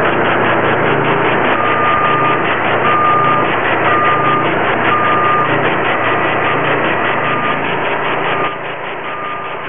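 Hydro Tek hot-water pressure-washer trailer running steadily, with a short beep repeating about once a second from a couple of seconds in. The noise drops a little near the end.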